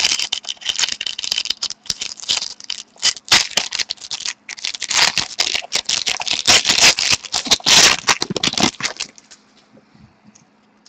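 Trading cards being handled: a dense run of quick clicks and rustles as cards and pack material are shuffled and slid against each other, dying down about nine seconds in.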